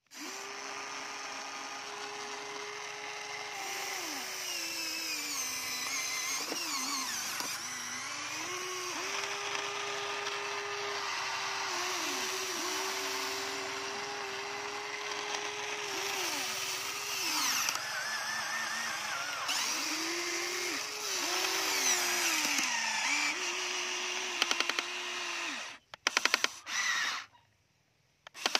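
Huina radio-controlled model excavator's electric gear motors whining as the arm and bucket dig into dry soil, the pitch sagging and recovering as each motion starts, takes up load and stops. Near the end the whine breaks into a few short buzzes with quiet gaps between.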